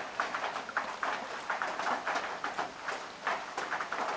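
Rain falling: a steady hiss dotted with many irregular, sharp drop ticks.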